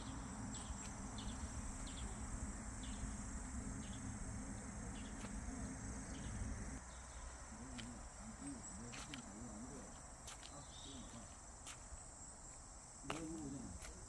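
Insects chirring steadily in a high, even drone, over a low rumble that drops away about halfway through.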